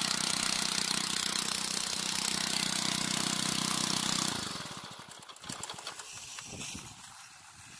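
Motorbike engine driving an irrigation water pump, running steadily under load, then switched off about four seconds in and spinning down to a stop within about a second.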